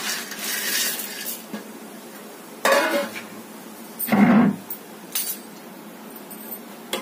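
Steel cookware clattering at a gas stove: a hiss for about the first second, then two loud metal clanks about a second and a half apart, the second the louder, and a few lighter clicks. These fit a steel lid being set down on the counter.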